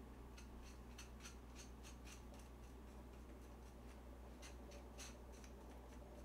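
Kitchen scissors snipping chewy jjolmyeon noodles in a stainless-steel bowl: a dozen or so faint, quick snips, in one run over the first two seconds and another about five seconds in.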